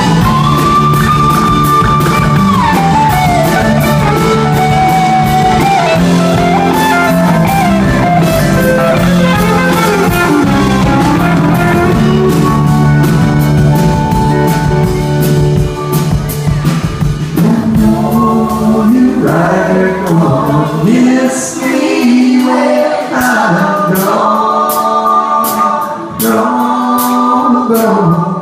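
Live rock band: an electric guitar lead bends and slides over bass and drums. About eighteen seconds in, the bass drops out and voices start singing in harmony over drums and guitar.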